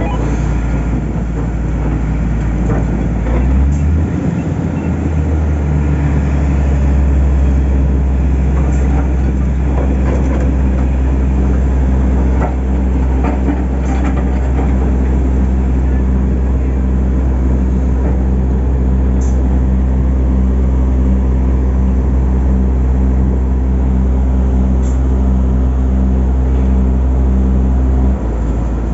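Heavy machinery diesel engine running at a steady speed with a deep, droning hum. Its note shifts a few seconds in, and it cuts off abruptly near the end.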